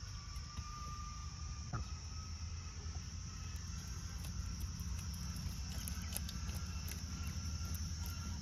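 Outdoor ambience: a steady high chirring of insects over a low steady rumble, with a few faint clicks.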